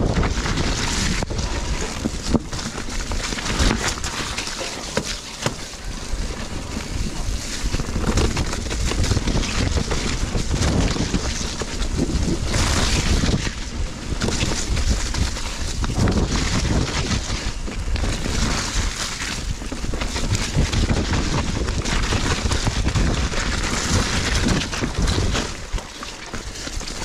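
Mountain bike ridden down a wet, muddy woodland trail: steady wind rush over the microphone, with the tyres rolling through mud and the bike rattling over roots in frequent short knocks and clicks.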